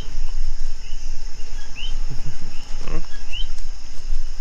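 Coquí frogs calling, a short rising chirp about once a second, over a steady high-pitched insect chorus. A heavy low rumble from mic handling runs underneath, with a brief knock near the three-second mark.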